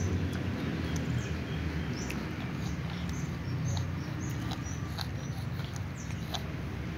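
Cat chewing crunchy fried food, a scatter of small irregular crunching clicks, over a steady low rumble.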